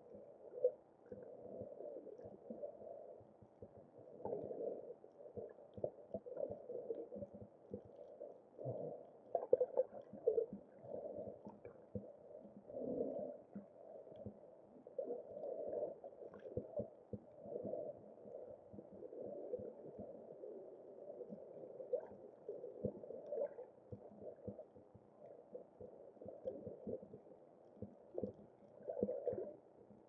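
Muffled underwater sound picked up through a camera's waterproof housing: low, uneven swishing of water that swells and fades every second or two, with scattered faint clicks.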